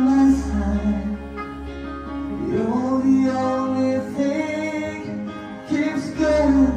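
Live acoustic band: a man sings into a microphone over acoustic guitar and keyboard. The sung notes are long and held.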